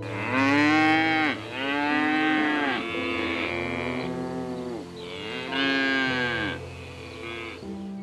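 Bovine lowing: several long moos, each rising and then falling in pitch, over soft background music.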